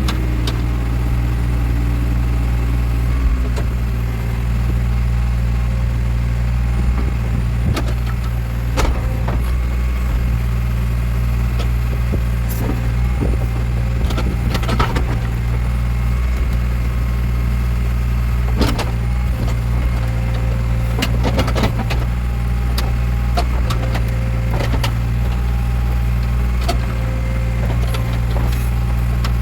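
Backhoe loader's diesel engine running steadily under work, with scattered sharp knocks and clanks from the machine.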